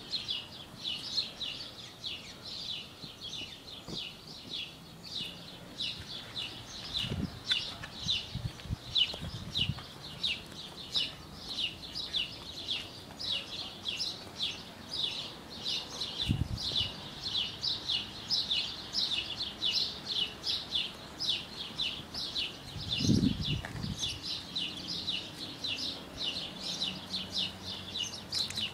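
A bird chirping over and over, short high chirps about two to three a second, with a few dull low thumps from handling the phone.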